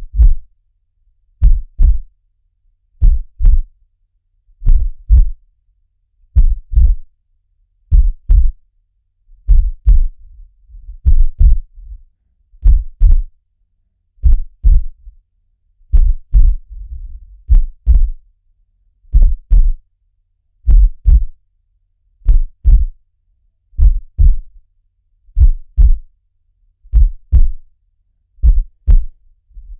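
Heartbeat sound in a steady slow loop: a low double thump (lub-dub) about every 1.6 seconds, with a faint low rumble between a few of the beats.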